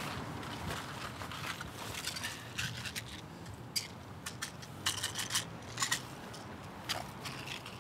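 Paper crinkling and rustling as a paper envelope and sheet are handled, in a run of short, sharp crackles that is busiest about five to six seconds in.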